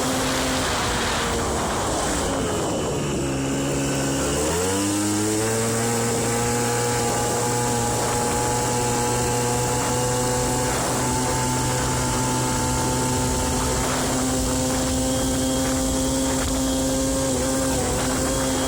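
Aprilia Ditech scooter's 50cc two-stroke Morini engine running on a test ride. The revs drop about three seconds in, pick up sharply a second later, then hold steady. The engine has freshly fitted crankshaft bearings that already show crank play.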